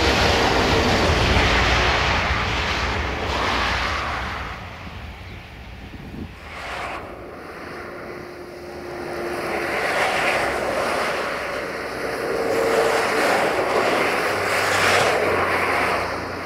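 Jet airliner engines roaring overhead, fading over the first few seconds; then, after a sudden change, a combine harvester running, its engine and threshing noise rising and falling as it works the field.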